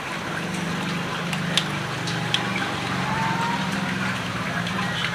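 A steady low motor hum, with a few sharp clinks of metal spoons against a wok about one and a half and two and a half seconds in.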